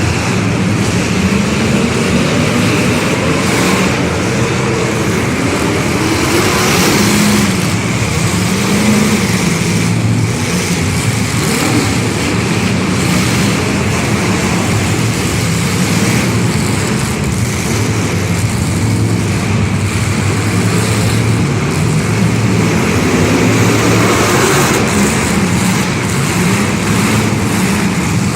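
Several car engines running and revving, their pitch rising and falling over one another.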